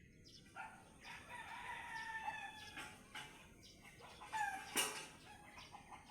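Rooster crowing faintly: one long drawn-out call, then a shorter call about four and a half seconds in, with a sharp click just after.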